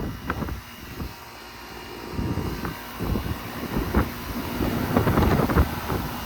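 Wind gusting across the microphone: an uneven low rumble that drops away about half a second in and builds again from about two seconds.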